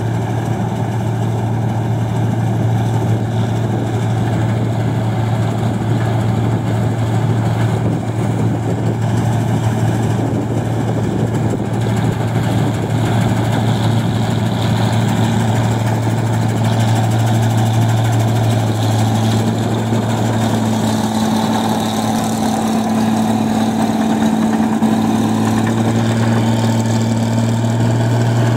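New Holland 1545 combine harvester running steadily as it cuts and threshes rice, its diesel engine giving a constant hum. The sound grows a little louder past the halfway point as the machine comes close, and a higher steady tone joins in.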